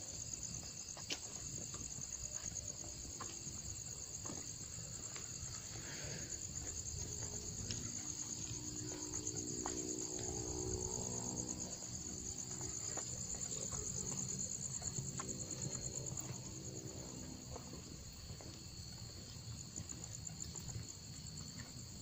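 Crickets chirring steadily in a continuous high-pitched, finely pulsing chorus.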